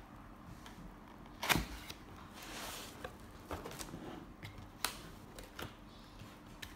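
Product packaging box being opened by hand: scattered clicks and light knocks of cardboard and contents, the loudest about a second and a half in, with a soft sliding rustle shortly after.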